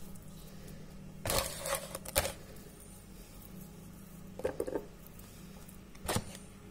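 Hands pressing and patting mashed potato into a metal baking pan: a handful of short pats and knocks, some of them fingers or a ring tapping the pan, over a faint steady low hum.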